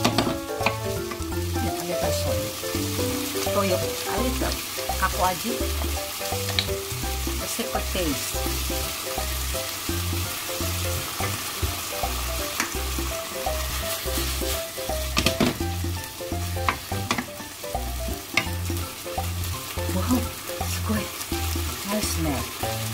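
Chopped onion and chicken pieces sizzling in a frying pan and being stirred with a wooden spatula, which clicks against the pan now and then. Background music with a steady bass beat plays throughout.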